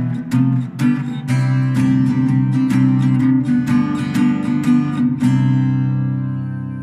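Acoustic guitar strummed without singing, then a final chord struck a little past five seconds in and left to ring, fading away as the song closes.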